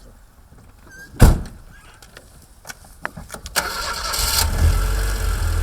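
A loud thump about a second in, like a car door shutting, then a few small clicks. A car engine starts about three and a half seconds in and settles into a steady idle.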